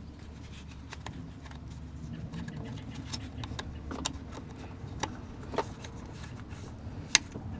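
Scattered small clicks and taps as the wiring connector is handled and plugged into the top of the Haldex AWD pump's control module, with a sharper click about seven seconds in. A low steady hum runs underneath.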